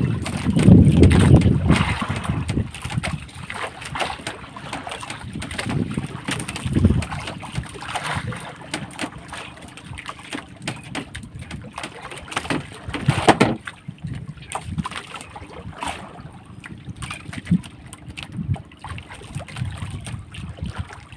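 Wind buffeting the microphone and water sloshing around a small fishing boat at sea, with scattered knocks and splashes. The gusts are loudest at the start. A faint steady hum joins about halfway through.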